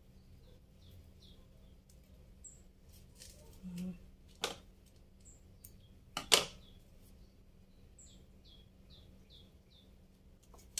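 Scissors snip twice through Philodendron mexicanum stems, sharply, about four seconds in and again about six seconds in, the second cut the louder. A bird chirps in the background in short runs of quick descending notes near the start and again near the end.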